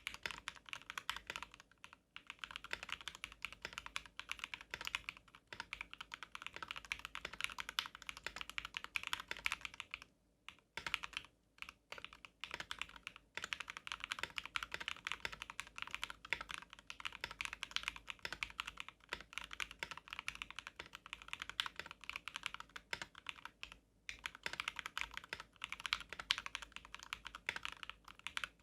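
Typing on a custom 60% mechanical keyboard with lubed Jwick Black linear switches on a carbon fibre plate in a resin case: a dense, continuous run of key strokes, broken by short pauses twice.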